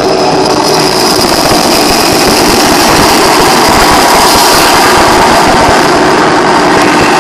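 Live industrial noise music: a loud, dense wall of distorted electronic noise over steady droning tones, unbroken throughout.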